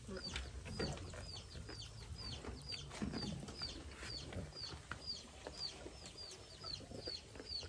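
A bird's short, high peep, repeated about twice a second, with a few faint clicks and knocks under it.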